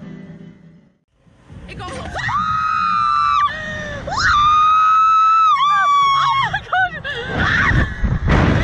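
A young woman screaming on a slingshot ride: two long, high-pitched held screams followed by several shorter ones, with a burst of rushing noise near the end.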